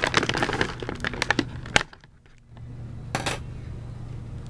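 Stiff plastic toy packaging crinkling and crackling as a small figure is worked free of it, ending in a sharp snap a little under two seconds in. Another short crackle follows about three seconds in.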